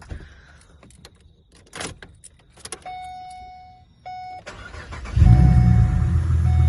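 A few clicks and rattles, then a brief steady tone that breaks off once. About four and a half seconds in, a Holden VE Commodore's freshly swapped-in engine starts, catches and runs loud and steady.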